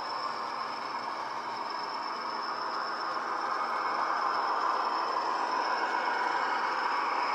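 Bachmann OO-gauge Class 40 model's ESU LokSound decoder sound played through 27 mm round speakers: the English Electric diesel engine running with a steady high whistle, growing louder from about halfway through as the locomotive comes back round towards the camera.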